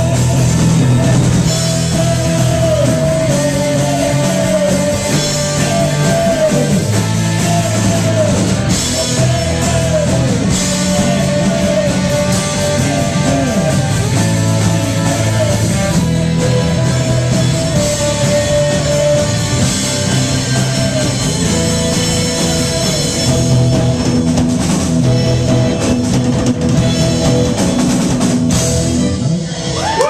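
Live rock band playing: electric guitars, electric bass, drum kit and saxophone, with steady drums under held melody notes.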